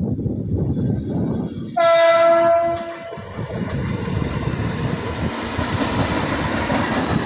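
Small railway track-maintenance train rolling past with a steady rumble of wheels on the rails. Its horn sounds once for about a second, about two seconds in.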